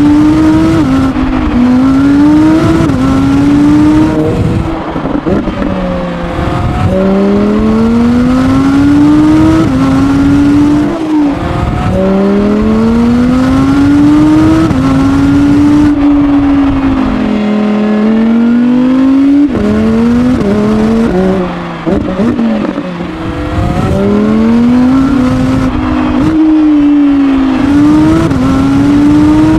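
Audi R8 V10 GT's 5.2-litre V10 engine at racing speed, its pitch climbing hard and dropping back again and again as it shifts up through the gears. Around the middle the revs fall away in one long sweep as it slows, followed by a run of short quick revs.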